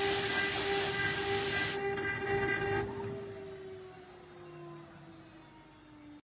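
CNC router's water-cooled spindle whining at a steady high pitch under a loud hiss; the hiss cuts off about two seconds in, then the spindle slows down, its whine falling slowly in pitch and fading.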